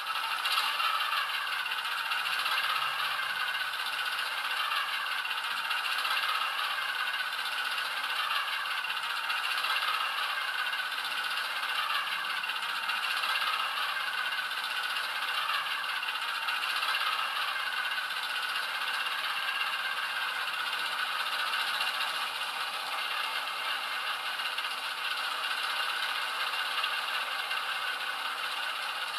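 Loksound V4 sound decoder in a Hornby Class 08 model shunter playing the Class 08 diesel engine idling through the model's small speaker: a steady rattling clatter, thin and without deep bass.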